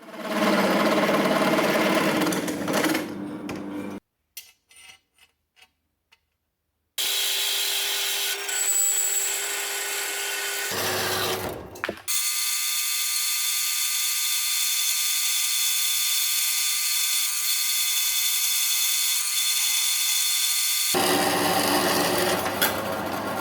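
Workshop power tools running in a series of short edited clips, split by abrupt silences. The longest stretch, from about twelve seconds in, is a steady high-pitched run lasting around nine seconds.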